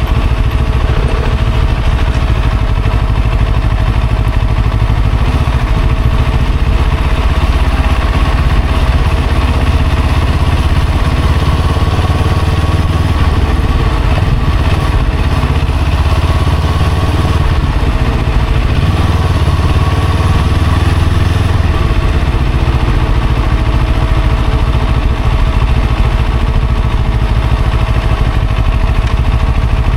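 Steady running noise from a motorcycle and traffic on the move. A constant low rumble with a faint even hum runs through it, and it does not change much.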